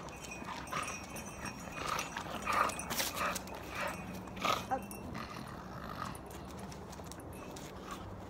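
A dog tugging on a ball-on-a-rope toy: short dog noises and the scuffing of its feet and claws on concrete, several in the first five seconds, then quieter.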